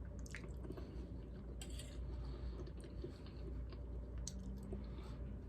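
Faint, scattered clicks of cutlery against a plate during a meal, over a steady low room hum.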